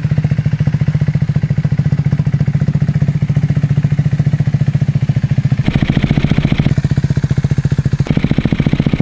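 Single-cylinder motorcycle engine idling through a LeoVince aftermarket exhaust, with a steady, even rapid beat. Twice, around six seconds in and again near the end, a harsher hissy edge is added for about a second while the beat holds steady.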